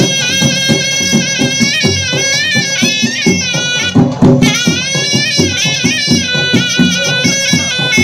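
Odisha folk dance music: a high wind instrument plays an ornamented melody that bends in pitch, over steady drum beats. The melody breaks off briefly about four seconds in, then goes on.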